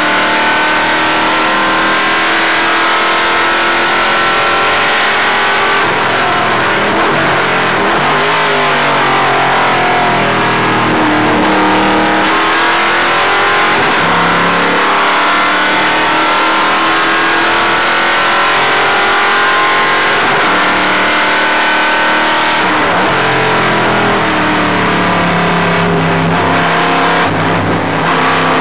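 Stock car racing engine heard from inside the cockpit, running hard at full racing speed, its pitch climbing and dropping again and again with gear changes and corners.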